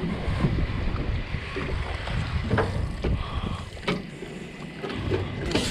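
Outboard-powered boat under way, a low noisy rumble of motor and water with wind buffeting the microphone. A few short knocks come about two and a half, four and five and a half seconds in.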